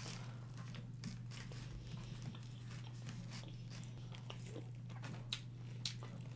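Quiet chewing and biting of soft garlic knots and pizza, heard as scattered faint wet mouth clicks over a low steady hum.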